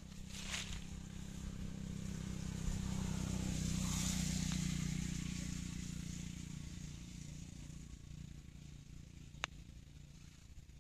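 A passing engine hum that swells to its loudest about four seconds in and then fades away. There is a short scrape of a blade digging in soil near the start and a single sharp click near the end.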